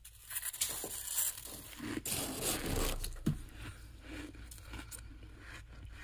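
A spoon digging and scraping into thick, fluffy humidifier-grown freezer frost, a crunchy, crumbly scraping. It is loudest over the first three seconds, with a sharp click a little after three seconds in, then goes on more quietly.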